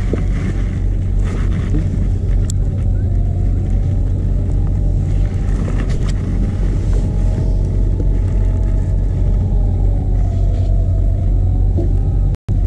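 A steady low engine drone with a faint whine above it that wavers gently up and down in pitch. It breaks off for an instant near the end.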